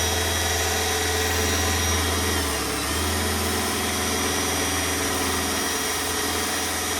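Electric power saw running steadily as it cuts through a kitchen countertop.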